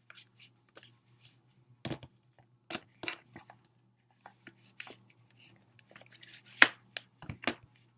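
A K-pop album and its contents being handled: scattered clicks, taps and light rustles, with a sharp snap about six and a half seconds in, loud enough that the handler thought the album had broken.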